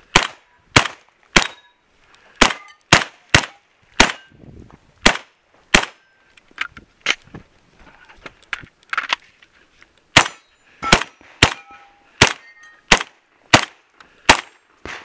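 A string of shots from an AK-pattern semi-automatic 12-gauge shotgun fitted with a muzzle brake, fired at targets in quick succession, roughly one every half second to a second. There is a pause of a few seconds around the middle, then the shooting resumes.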